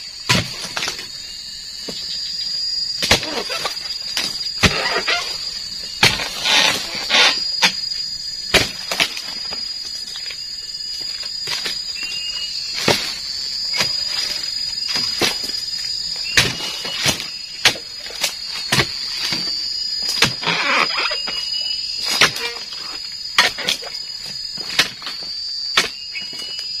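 Dodos, a flat chisel blade on a long pole, chopping into oil palm frond bases: sharp chops at irregular intervals of about one to two seconds, some followed by rustling. A steady high-pitched insect drone runs behind.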